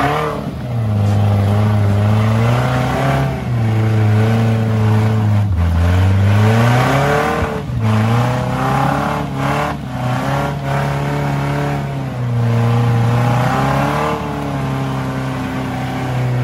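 Engine of a built Toyota pickup rock crawler revving hard under load as it climbs a steep rock ledge: the revs climb quickly and hold high and steady for a second or two, then drop briefly, several times over. A few sharp knocks sound through the revving around the middle.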